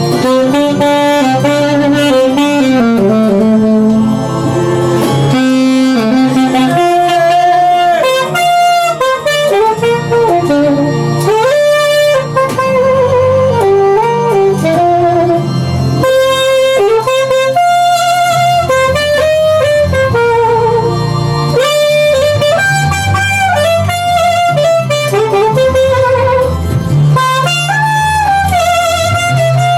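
Instrumental break in a Yoruba gospel song: a wavering, saxophone-like lead melody over a steady bass line and backing band.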